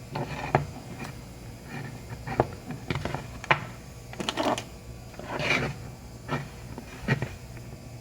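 Handling sounds from a damaged laptop charger being worked on: a series of irregular clicks and knocks on hard plastic, with two short scraping passes near the middle.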